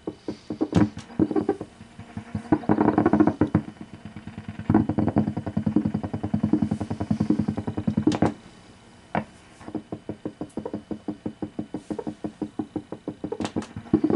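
Electrical interference from a turntable picked up by a vintage tube AM radio tuned to 600 AM: a rapid pulsing buzz from the radio's speaker. The buzz shifts as the turntable's controls are worked, cuts out briefly about eight seconds in, then comes back at a slower pulse.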